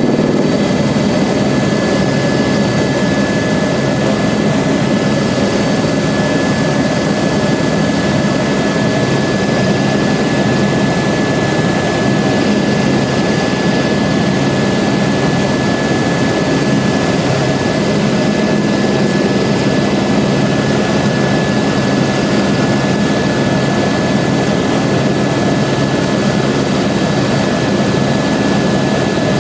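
Airbus H125 (AS350 B3e) helicopter in cruise flight, heard from inside the cabin: a loud, steady drone of its single turboshaft engine and rotors, with a constant high whine running through it.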